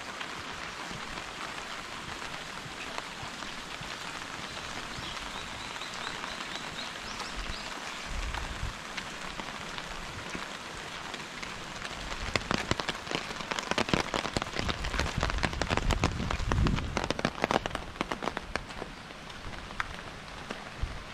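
Steady rain falling, an even hiss. From about twelve seconds in, for several seconds, many loud, sharp drops patter close by, then ease off again.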